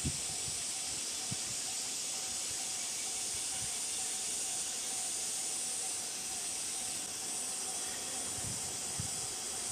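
Steady, high-pitched hiss of a summer cicada chorus, with a faint steady lower hum and a few soft low thumps underneath.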